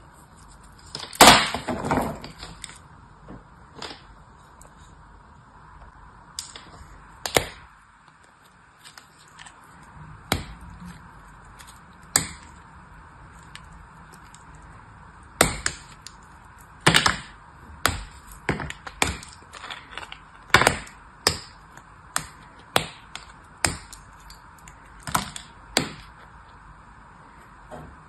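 Pieces of dry, hard soap snapping and crumbling between the fingers: a run of sharp, crunchy cracks. The loudest comes a little over a second in, with a short crackle after it, and the snaps come more often in the second half.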